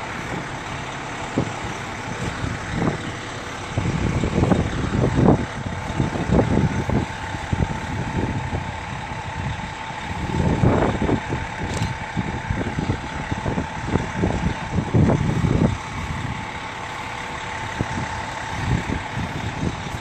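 Fire trucks idling in a steady drone with a faint constant tone, while wind gusts buffet the microphone in irregular low rumbles that swell and fade several times.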